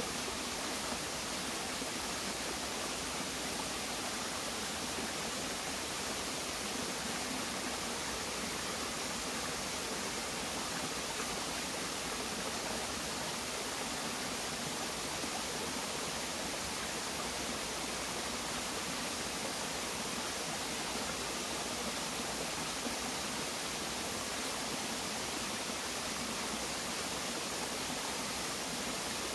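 Shallow forest stream running over rocks: a steady rush of water with no breaks.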